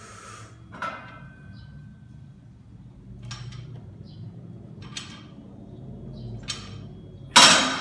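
Bench press rep: the barbell is lifted off the bench's rack hooks with a short metal clink and a brief ring about a second in, a few short, hissing breaths come during the press, and near the end the bar is set back into the metal hooks with a loud clang.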